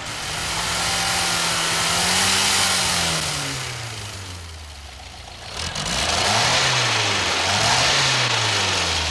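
Engine running with its pitch and loudness swelling and falling twice: a first long rise and fall, then a second surge with two humps near the end.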